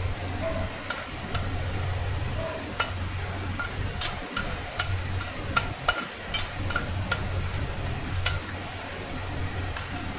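Peanuts frying in a little oil in an aluminium kadhai, stirred with a perforated steel slotted spoon: irregular clicks and taps of the spoon on the pan over a light sizzle and a steady low hum.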